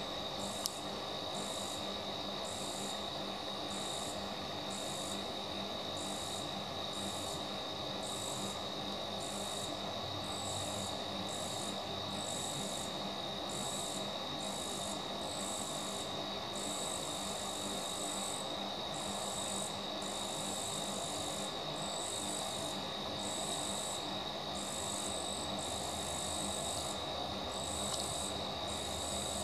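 Night insect chorus: a steady high trill under a higher chirping that pulses regularly, a little more than once a second, with one small click shortly after the start.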